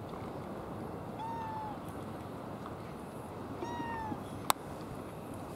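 A cat meowing twice, each a short, slightly falling call about two and a half seconds apart, over a steady hiss. A single sharp click comes about four and a half seconds in.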